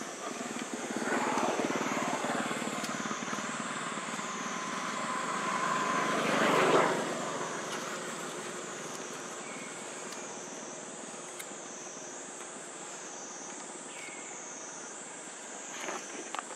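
A passing engine, most likely an aircraft, that swells over several seconds, peaks about seven seconds in, then slowly fades. A steady, pulsing insect chorus runs high in the background.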